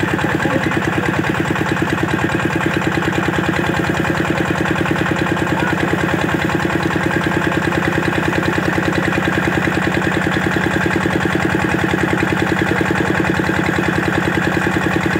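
Old stationary diesel engine running steadily with an even, rapid beat, driving a tubewell pump.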